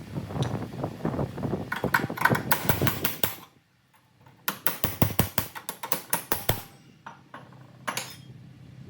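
Rapid runs of metal tapping and clanking from hand tools on the truck's exhaust parts. There are two quick bursts of strikes with a short pause between them, and a few more taps near the end.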